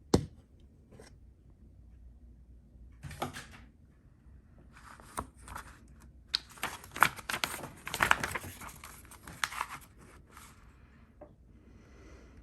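Paper rustling and crinkling as the pages of a folded instruction manual are handled and turned, with one sharp knock at the very start and the busiest rustling in the middle.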